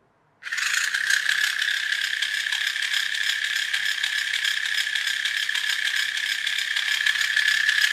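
Small electric motor running a plastic gear train, a steady high whine over a fast clicking rattle. It starts about half a second in.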